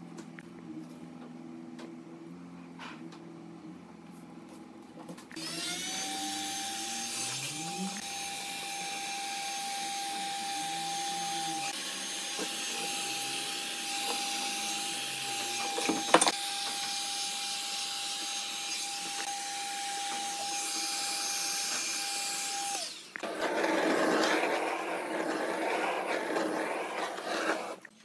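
A small electric power tool spins up about five seconds in and runs at a steady high whine with a rushing noise for about seventeen seconds, with one sharp knock partway through, then cuts off. A rougher, uneven noise follows for the last few seconds.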